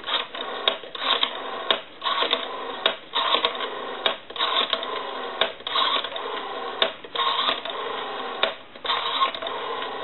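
AT&T rotary-dial desk telephone being dialed digit after digit: the dial winds and whirs back, clicking out its pulses. Under it runs a steady tone from the phone line, broken by short gaps again and again.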